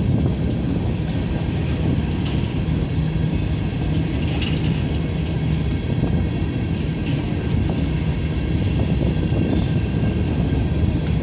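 Norfolk Southern freight train of hopper cars rolling past at close range: a steady, loud rumble of steel wheels on the rails, with a faint high wheel squeal a few seconds in.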